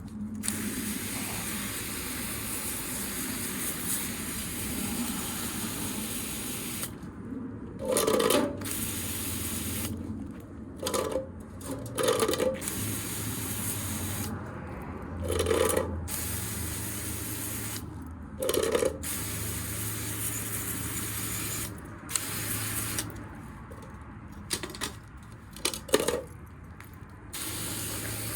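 Powered sprayer running and spraying coil-cleaner chemical onto a dirty blower wheel: a steady spray hiss over a low motor hum. The hiss cuts out briefly several times, and a handful of short, louder bursts come through.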